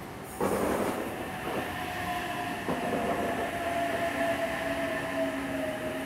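Sydney Trains H-set double-deck electric train running into the platform and slowing, its cars rumbling past close by. A steady whine falls slowly in pitch throughout. A sudden rush of noise comes in about half a second in.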